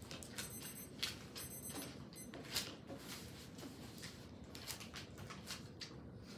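Papers and small objects handled on a desk: a scatter of soft rustles and light taps, busiest in the first few seconds.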